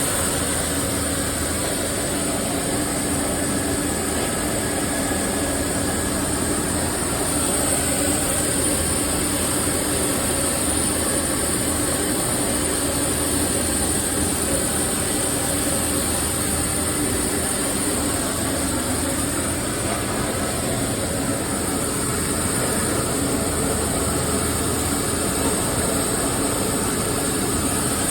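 A steady, loud mechanical rumble with a constant high hiss, engine- or train-like, running on unchanged without a break.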